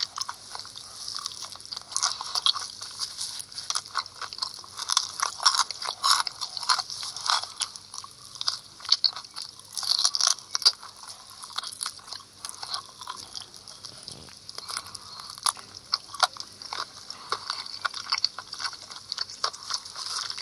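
Someone biting and chewing crunchy food close to the microphone: a dense run of irregular crunches and crackles, busiest in the first half.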